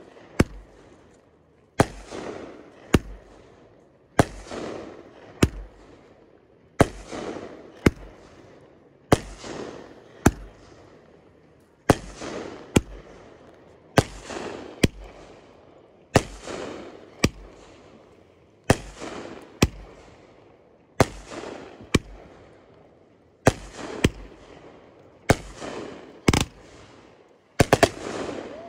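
Aerial fireworks going off in a steady sequence. Each shot is a sharp bang, a fading hiss and a second bang about a second later, repeating roughly every two to two and a half seconds.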